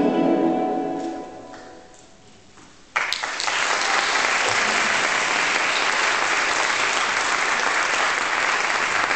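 The ballet music's last held chord fades away. About three seconds in, audience applause breaks out suddenly and carries on steadily.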